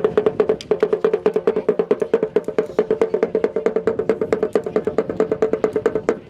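Music with a fast, even percussion beat of about eight to ten strokes a second over a steady pitched tone, stopping at the end.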